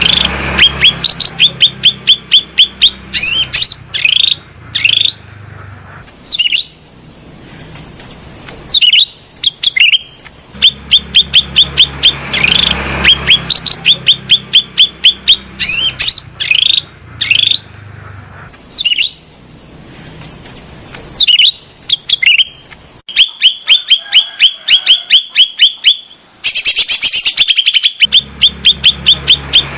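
Cucak rante songbird singing: phrases of rapid, evenly repeated sharp chirping notes, several a second, broken by short pauses.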